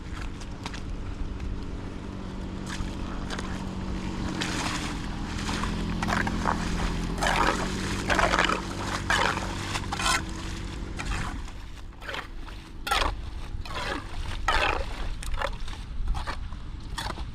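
Water sloshing and splashing in irregular strokes with scraping, over a steady low hum.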